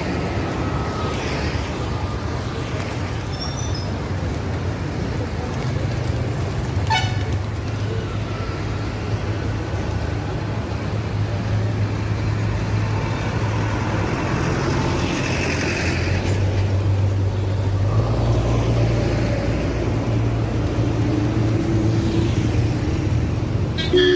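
Busy street traffic: a steady hum of passing motorbikes, auto-rickshaws and cars, with a horn tooting near the end.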